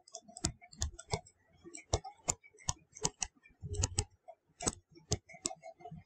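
Light, irregular clicks and taps of a stylus touching down on a tablet screen stroke by stroke as a word is handwritten, about three a second.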